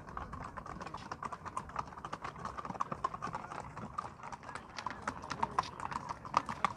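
Racehorses' hooves clip-clopping at a walk on brick paving: a continuous run of irregular sharp clicks.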